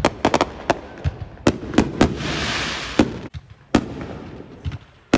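Fireworks going off in a rapid, irregular series of sharp bangs, several coming in quick succession at the start. A steady hissing rush lasts about a second just after the two-second mark.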